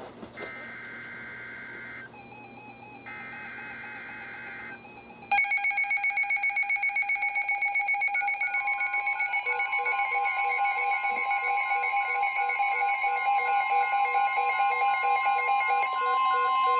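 Two bursts of the SAME digital header data tones from NOAA Weather Radio. About five seconds in, several weather-alert radio receivers set off together with loud, rapidly pulsing electronic alarm beeps, and a steady warning tone comes in under them: the receivers are triggered by a new flood warning.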